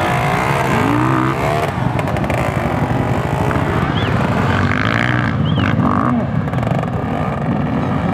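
Several enduro dirt bike engines revving at once, their pitches rising and falling unevenly as riders blip the throttles to push the bikes over a log obstacle.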